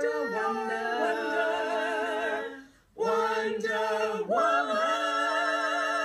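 A small group of voices singing a cappella in harmony, holding long chords with vibrato; they break off briefly a little before three seconds in, then hold another chord.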